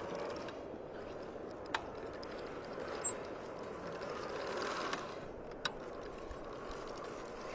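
Mountain bike rolling on grass in a wheelie: steady tyre and drivetrain noise with faint freewheel ticking, and a few sharp clicks.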